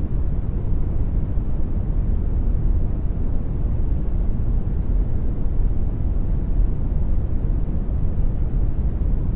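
Synthetic brown noise: a steady, deep, even rumble-like hiss with no changes or events.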